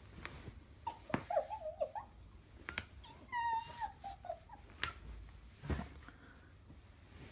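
A dog whining in high, wavering whimpers, twice: about a second in and again around three seconds in, with a few short sharp clicks between.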